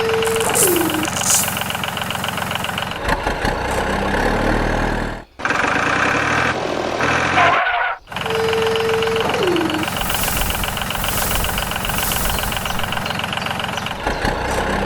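Engine running steadily with an even, rhythmic chug, cut off abruptly twice partway through. A short held tone falling in pitch sounds twice, near the start and about halfway.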